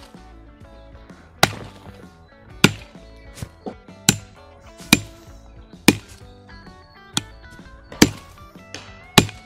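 The steel poll of an axe hammering an aluminium Olight M2R Pro Warrior tactical flashlight against a dead log: eight sharp blows about a second apart. Background music plays throughout.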